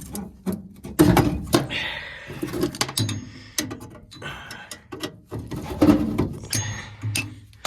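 Metal furnace parts and hand tools being handled: a string of clicks and knocks, with a few short scraping stretches between them.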